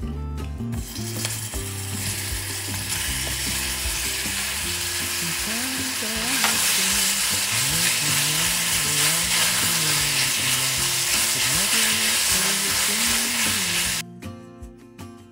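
Food sizzling in a hot pan while being stirred, a steady hiss that gets louder about halfway through and cuts off suddenly near the end, with background music underneath.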